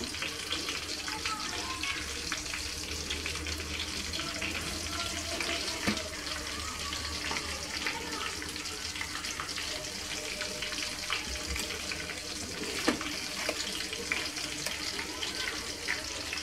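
Silicone spatula pressing and smoothing rice salad in a stainless-steel mould: soft scraping with two light knocks, over a steady hiss and faint hum.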